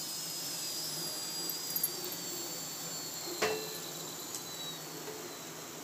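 Hot oil sizzling quietly in a deep frying pan after a batch of potato chips is lifted out, with a faint high whine slowly falling in pitch and a single metal knock about three and a half seconds in.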